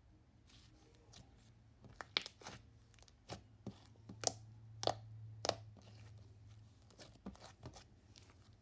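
Slime being squished and poked, giving a scatter of sharp pops and crackles that start about two seconds in and die away near the end.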